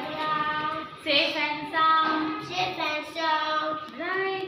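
A child singing a rhyme about a bicycle, unaccompanied, in phrases with held notes.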